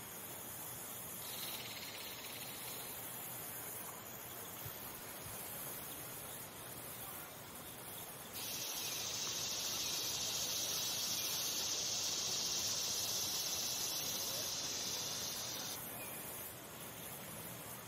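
A singing insect buzzes in a high, even trill that starts suddenly a little past the middle, holds steady for about seven seconds and cuts off abruptly. A fainter, shorter insect trill comes near the start, over a steady background hiss.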